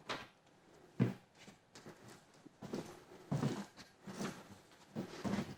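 A single sharp thump about a second in, then faint scattered knocks and movement sounds.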